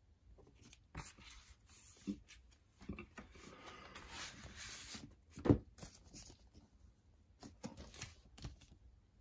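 Cardboard gatefold record jacket and paper sleeve being handled: rustling and sliding of paper and card, with one sharp thump about halfway through.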